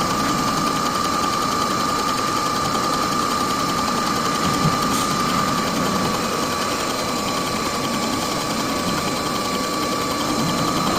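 Bridgeport milling machine running with a shop-made fly cutter: a steady whine over a dense, even mechanical rattle.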